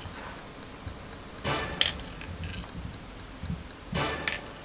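Faint, even clock-like ticking, about four ticks a second, with two short rustling whooshes, one about a second and a half in and one near the end.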